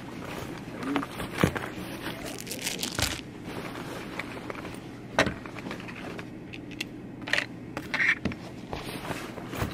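Things being set down on a desk close by: a series of short knocks and clicks on the desktop mixed with the crinkle of a plastic bag, over a faint steady low hum.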